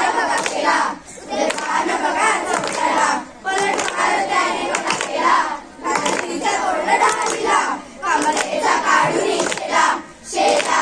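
A group of children singing in chorus into a microphone in short phrases with brief pauses between them, clapping their hands along.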